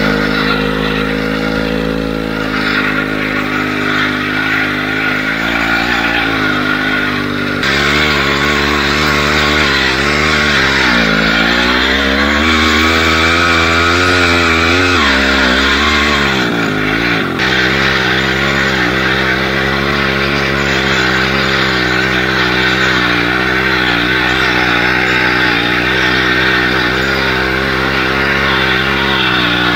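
Chainsaw engine of a homemade all-wheel-drive motorcycle running under way, its pitch rising and falling with the throttle. The sound changes abruptly twice, about a quarter of the way in and again just past halfway.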